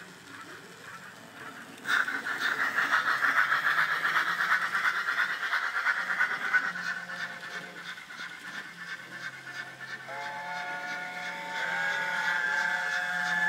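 Dapol A4 model locomotive's DCC sound decoder playing steam-engine sounds through a tiny sugarcube speaker. About two seconds in, a sudden burst of rapid chuffing with heavy steam hiss starts and slowly eases. Near the end a multi-note chime whistle sounds and is held.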